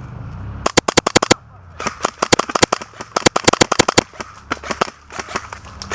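Airsoft guns opening fire. A quick string of sharp pops comes about a second in, then after a brief gap a longer run of rapid shots, thinning out near the end.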